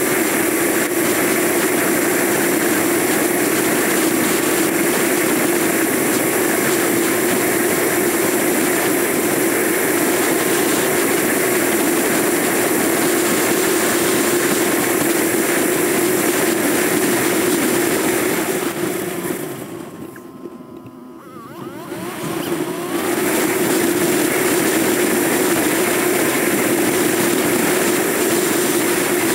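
Motorcycle under way: a steady rush of wind and road noise over the engine's drone. About twenty seconds in the noise drops away for a few seconds, with faint changing engine tones, then comes back at full level.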